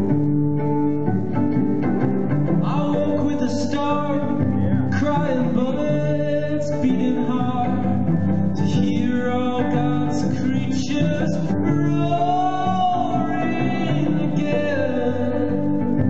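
Live music: layered string parts, plucked and bowed, repeating steadily under a man singing.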